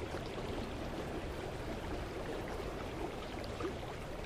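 Mountain creek flowing steadily over rocks, a continuous babble with small gurgles.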